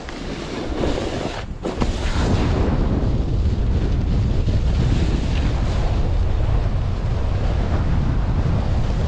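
Strong wind buffeting the microphone of a camera carried on a snowboard run, a heavy, steady low rumble that grows louder about two seconds in.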